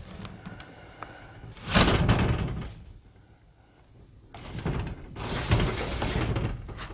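A wooden sliding door being shoved along its track by foot, making two noisy runs: a short one about two seconds in, and a longer one starting about four seconds in.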